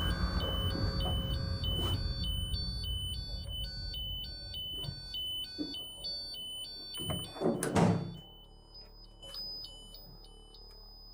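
Electronic alarm melody of high beeps stepping up and down in pitch, over a low rumble that fades out about seven seconds in. A loud clatter comes about eight seconds in, then the beeps carry on more faintly.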